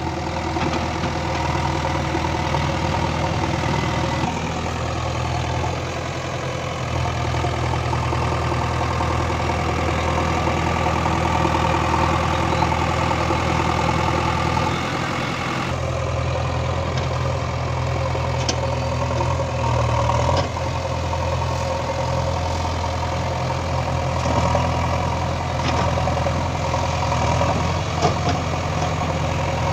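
JCB 3DX backhoe loader's diesel engine running steadily, its wheels bogged in mud, the engine pitch shifting slightly a few times.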